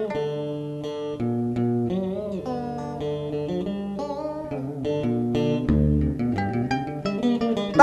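Instrumental interlude of a Vietnamese song: a plucked guitar melody with bent notes over a bass line.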